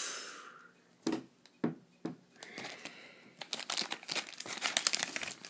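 Crinkling of a foil toy blind-bag packet being handled, busiest in the second half, with a couple of light knocks about a second in.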